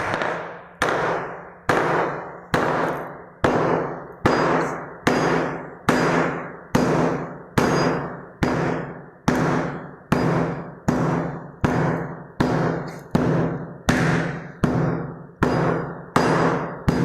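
Hammer striking a chisel in a steady series, a little under one blow a second, each blow ringing and dying away before the next. The chisel is breaking open the spot where the hidden water-pipe leak is thought to be.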